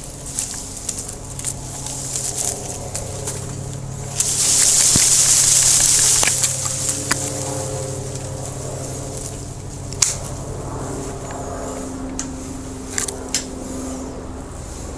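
Japanese maple being pruned: scattered sharp snips and clicks of pruning shears among the branches, and a loud rush of rustling leaves and twigs about four seconds in that lasts about two seconds. A steady low hum runs underneath.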